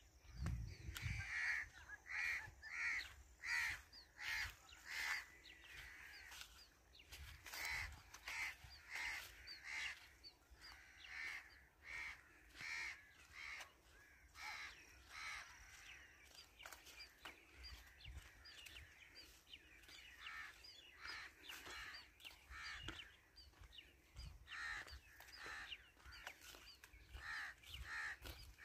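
Birds calling in a long run of short repeated calls, about two a second, over a low rumble.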